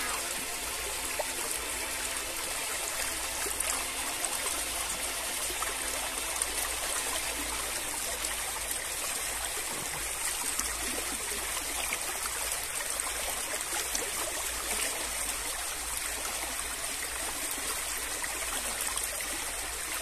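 Steady rush of water flowing and splashing in a small stream.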